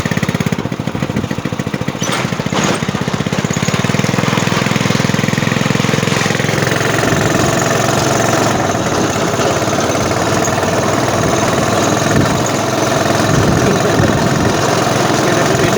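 Small four-stroke single-cylinder Honda Supra motorcycle engine running in a homemade car. About six seconds in, its note changes and a steady higher whine joins it.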